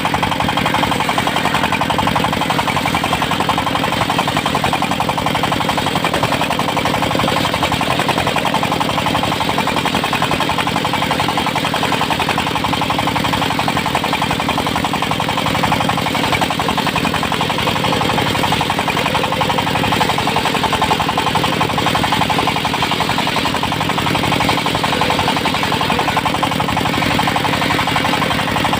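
Engine of a portable circular-saw sawmill running steadily under way, with a fast, even chugging rhythm.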